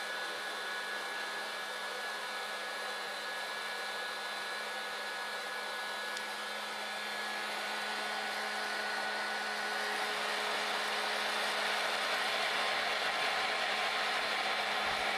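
West Bend Poppery hot-air popcorn popper, modified as a coffee roaster, running steadily: its fan blowing hot air through the bean chamber with a steady hum, growing a little louder in the second half. No cracking yet: the beans are still short of first crack.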